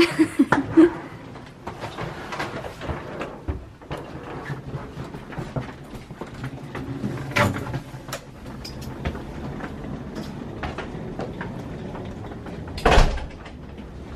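Luggage being handled in a small room: suitcases wheeled in across a wooden floor, with scattered knocks and clicks, and one loud thump near the end.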